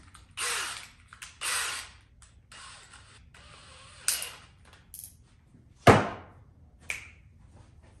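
Handling a cordless drill fitted with a countersink bit and depth-stop collar: two short rasping bursts in the first two seconds, scattered clicks, and a sharp knock about six seconds in.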